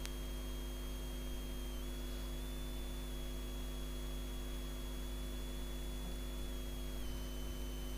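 Steady electrical mains hum: a constant low tone with a stack of higher overtones. One click right at the start.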